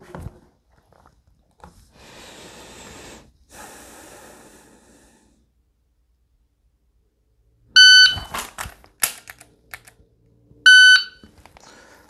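An electronic shot timer gives its start beep, followed by the rustle of a draw and several sharp dry-fire trigger clicks, then a second, identical beep about three seconds later marking the end of the par time. Soft rustling comes before the first beep.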